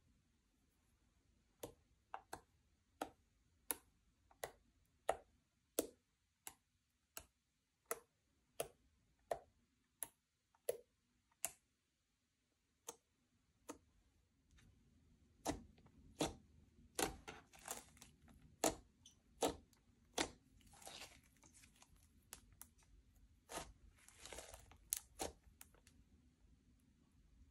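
Slime being pressed and kneaded by hand, giving sharp sticky clicks and pops about one and a half a second. After a short pause about halfway through, a denser run of pops and crackles follows.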